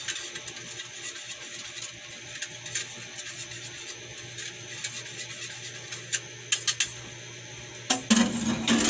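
Cream of mushroom mixture poured from a plastic bowl into a pan of thick cream sauce: scattered small clicks and knocks over a steady hiss and low hum, with a louder burst of clattering and scraping about eight seconds in.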